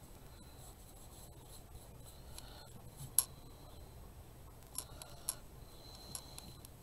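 Paintbrush spreading Mod Podge over cardboard: a faint, soft scratching of the bristles, with a few light clicks and taps, the sharpest a little after three seconds in.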